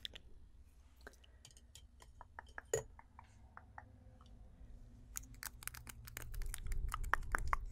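Close-miked ASMR mouth sounds: scattered soft clicks and smacks, sparse at first with one sharper click a few seconds in, then coming thick and fast over a low rumble in the last few seconds.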